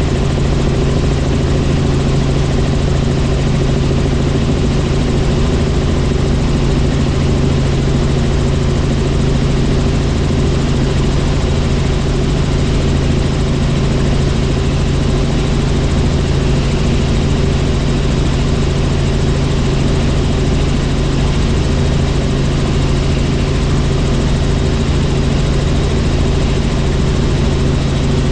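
Helicopter in flight, its engine and rotors giving a loud, steady hum with a strong low tone that holds unchanged.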